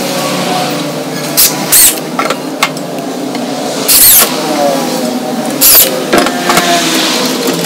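Electric hand drill driving a bit through a thin steel plate into a wooden plank, in short bursts with sharp high metallic squeals about four times. Its motor winds down in pitch after the burst around four seconds in, over a steady low machine hum.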